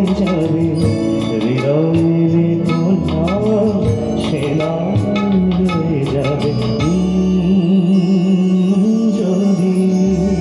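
A male vocalist sings live into a microphone over a band of keyboard, electric guitar and bass, amplified through a PA. The melody slides and ornaments through the first half over a beat, then he holds a long note from about seven seconds in.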